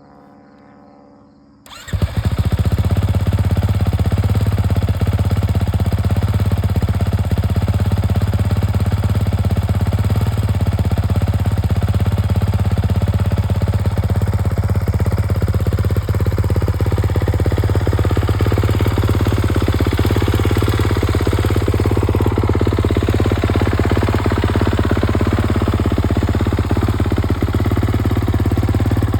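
Kawasaki KX450 motocross bike's 450cc single-cylinder four-stroke engine starting about two seconds in, then idling steadily through its exhaust.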